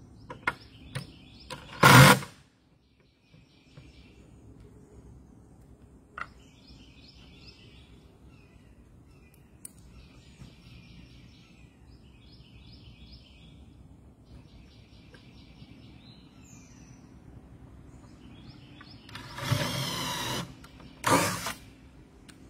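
Cordless drill running in short bursts near the end, driving screws into cedar fence boards, with a short loud burst about two seconds in. Between them, a bird sings repeated chirping phrases.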